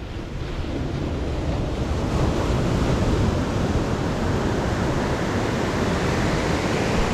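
Rushing, buffeting wind noise on an action camera's microphone while cycling, growing louder over the first couple of seconds and then holding steady.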